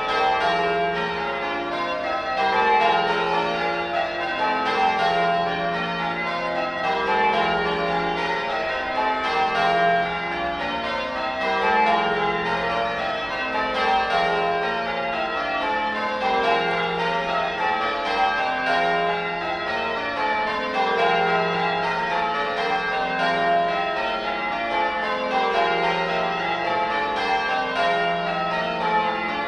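Change ringing on the 1954 Gillett and Johnston ring of eight church bells, rung full-circle with strikes following one another in a steady, even rhythm.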